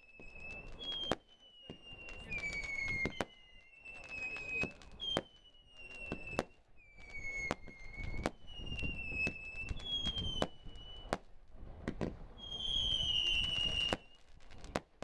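Steam Roller 98-shot single-ignition firework barrage cake firing a steady string of shots, about one a second. Each shot is a high whistle of about a second, mostly falling a little in pitch, with sharp bangs of bursting shells between them. The longest and loudest whistle comes near the end.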